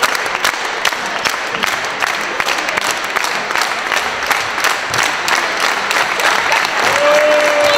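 Crowd of fans and players clapping hands together in dense, irregular applause. Near the end a single voice sets in with a held call.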